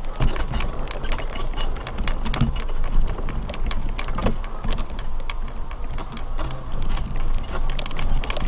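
Mobility scooter driving over grass: its electric motor hums steadily, with frequent irregular clicks and knocks as it rattles over the uneven ground.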